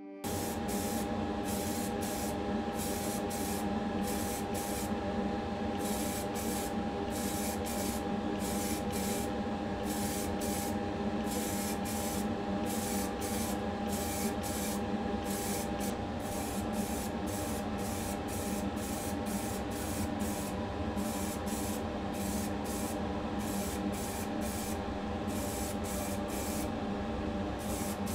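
Primer spraying in many short bursts of hiss, one or two a second, over a steady motor hum with a constant whine.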